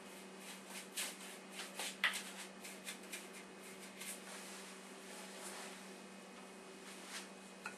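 Paintbrush sweeping back and forth across a canvas, spreading acrylic paint in short, irregular scratchy strokes, over a steady low hum.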